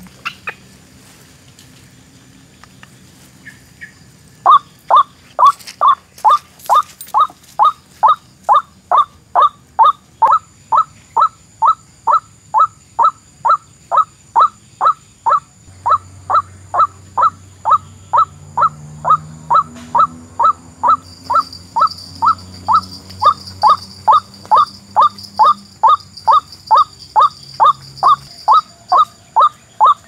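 White-breasted waterhen (ruak-ruak) calling: a loud, sharp note repeated very evenly about twice a second, starting about four seconds in.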